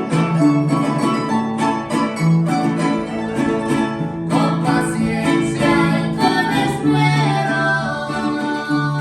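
Music led by plucked strings, guitar-like, over a steady bass line, with what may be a singing voice.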